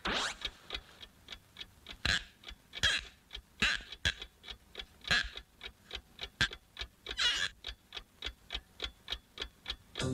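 Alarm clock ticking steadily, about three ticks a second, with several short hissing swishes over the ticks.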